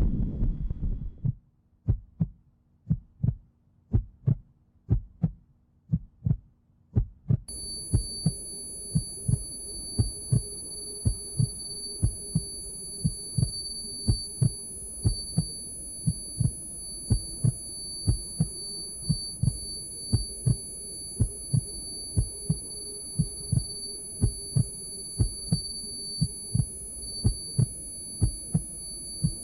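Heartbeat sound effect: slow, regular low beats about once a second. A low rumble fades out about a second in, and some seven seconds in a steady high-pitched ringing tone with a hum comes in under the beats.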